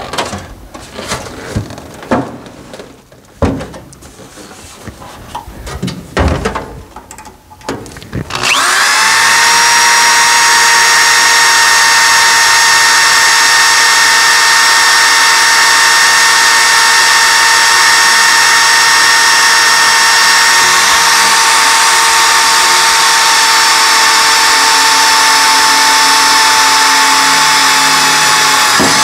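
A few seconds of knocks and clatter as the aluminum sheet is handled, then an electric drill starts about eight seconds in and runs at a steady high whine for about twenty seconds, slowly boring through the aluminum floor sheet into the square-tube frame. The hole takes a long time, which the driller supposes may be from hitting a weld.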